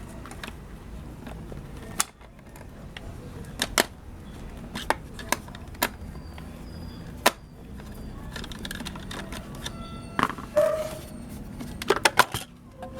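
Irregular sharp clicks and knocks of hand tools and plastic parts being handled while a small electric air-mattress pump is taken apart. There are about a dozen, unevenly spaced, over a steady low hum.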